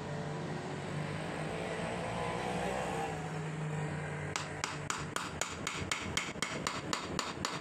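Ratchet wrench clicking in a quick, even run of about five clicks a second, starting a little past halfway, as the scooter's clutch-cover bolts are worked loose. A steady low hum sits underneath.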